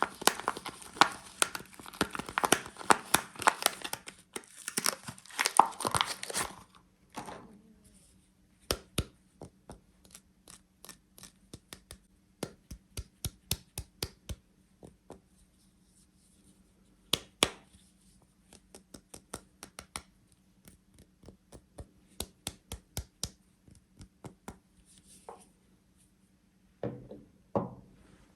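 Soap wrapper being torn and crinkled open, a dense crackle for about the first six seconds. Then sparse light clicks and taps as the unwrapped bar and packaging are handled, with a short swish near the end.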